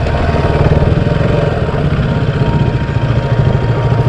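Motorcycle engine running with a steady, rapid firing pulse.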